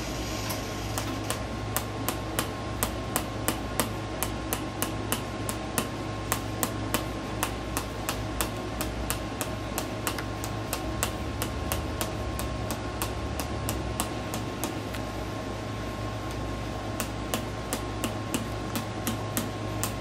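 Reflex hammer tapping a metal chiropractic adjusting instrument held on the sacrum: a quick, even run of light taps, several a second, pausing briefly about fifteen seconds in before starting again. This is a gentle percussive adjustment of the lower back and sacrum.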